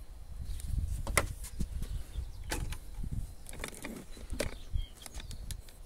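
Scattered sharp clicks and small mechanical knocks, a few seconds apart, over a low uneven rumble; no music playing.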